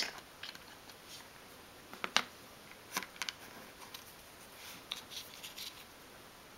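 Faint small clicks and light rustles of fingers handling tiny card packets and a glue-smeared card, with a sharper tick about two seconds in and a few more around three and five seconds in.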